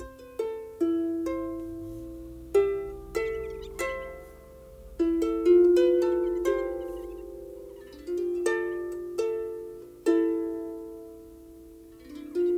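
Harp playing slow plucked notes and chords, each struck and left ringing to fade away.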